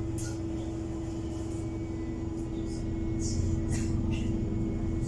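Heuliez GX337 CNG city bus heard from inside the passenger cabin while under way: a steady engine and road drone with a constant hum, growing a little louder after about three seconds, with a few short high hisses and rattles.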